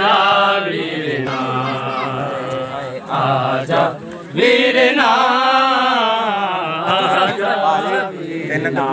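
A group of men chanting a Punjabi noha, a Shia lament for Muharram, without instruments. Their voices rise and fall in a slow, wavering melody, with a short break about four seconds in.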